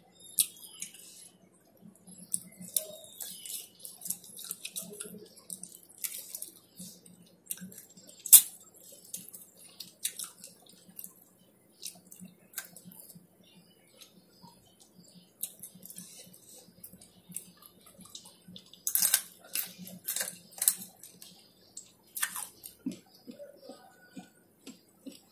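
Close eating sounds: a person chewing and smacking her lips while eating with her fingers, making scattered irregular wet clicks and smacks. One sharp click stands out about eight seconds in, and the smacks come thicker a little past two-thirds through.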